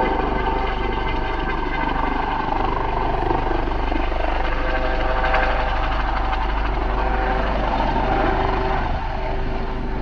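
A mountain rescue helicopter flying, a steady drone with several held tones over a low rumble, a little louder about halfway through.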